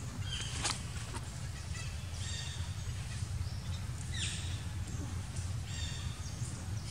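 Short, high-pitched animal calls repeating about once a second, some sliding down in pitch, over a steady low rumble.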